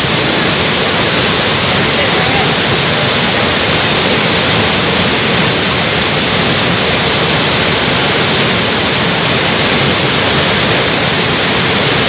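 Waterfall in heavy flow, a loud steady rush of falling water with no let-up.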